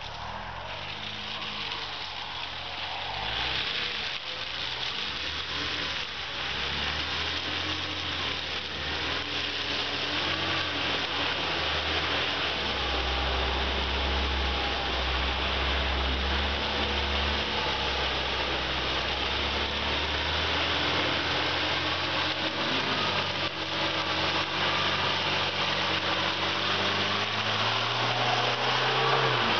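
Suzuki Vitara's engine labouring at low revs on an off-road climb, growing steadily louder as it comes closer, its pitch wavering with the throttle and rising near the end.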